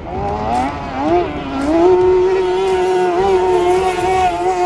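Racing outboard motor of a small classic racing boat running at high revs. The engine note wavers in the first second or so, then climbs about a second and a half in and holds high and steady.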